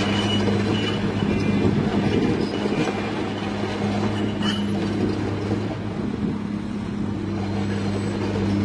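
Komatsu PC200-8 excavator tracking across the ground: its six-cylinder diesel engine runs with a steady hum, under the irregular clanking rattle of its steel tracks.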